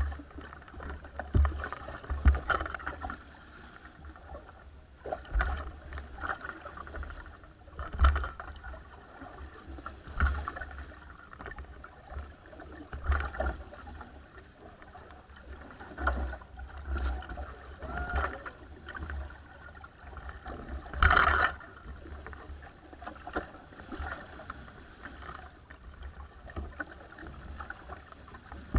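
Water rushing and splashing at the bow of a small wooden sailing dinghy under way in a chop, in irregular surges every one to three seconds as waves slap the hull, the loudest about 21 seconds in. A low rumble of wind runs underneath.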